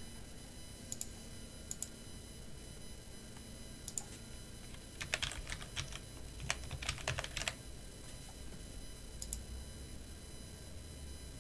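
Computer keyboard typing while entering login credentials: a few single key clicks, then a quick run of about a dozen keystrokes in the middle, and one more click near the end.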